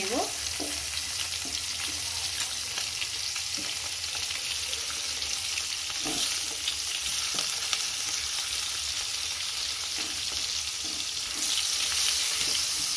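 Giant river prawns (golda chingri) frying in hot oil in a kadai: a steady sizzle with a few faint clicks, growing a little louder near the end. The prawns are browned on both sides and nearly done.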